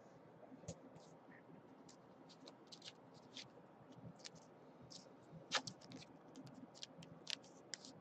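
Faint, irregular light clicks and scratches from hands working at a desk, with one sharper click about five and a half seconds in.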